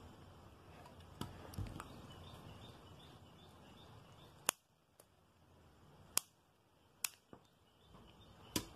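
Scissors cutting into a hard plastic bottle spout, heard as a few faint, sharp snips a second or two apart in the second half.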